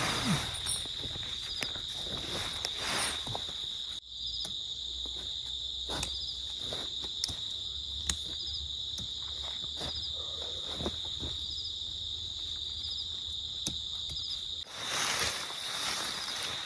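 Night insects keep up a steady, high-pitched chirring chorus. Scattered clicks, knocks and rustles come from tent poles and gear being handled while the tent is pitched.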